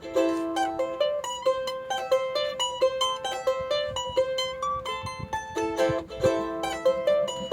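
Mahogany charango played solo, a quick run of plucked notes and strummed chords with a bright, ringing tone.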